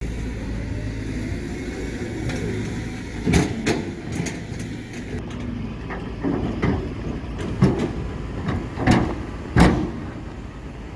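Heavy earthmoving machinery running, a steady diesel engine hum, with about six sharp clanks spread through the second half, the loudest near the end.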